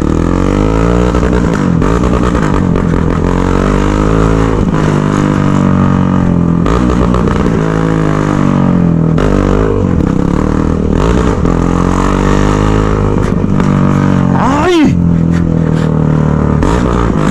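Yamaha XT motorcycle on an open, straight-piped exhaust, ridden hard. The engine note rises and falls again and again as the rider works the throttle, with a sharp quick rev about three-quarters of the way through.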